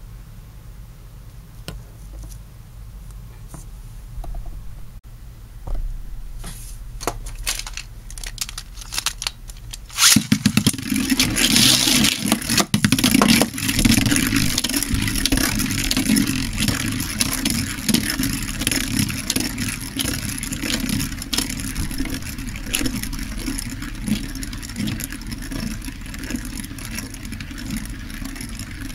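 Plastic and metal clicks of a Beyblade being handled. About ten seconds in, the top is launched into a plastic stadium with a sudden loud burst. It then spins and skids around the stadium floor on its modified wide flat tip, with a continuous rattling scrape.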